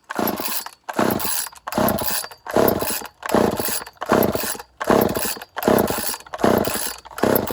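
Chainsaw being pull-started over and over, about eight quick rope pulls with the engine cranking but not catching: the cold saw, which has sat for about a year, fails to start.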